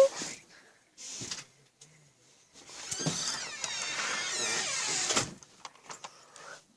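A small electric toy motor whirs steadily for about two and a half seconds, after a short noisy burst about a second in, with a few light ticks near the end.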